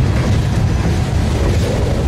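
Freight train rolling by, a loud, steady low rumble.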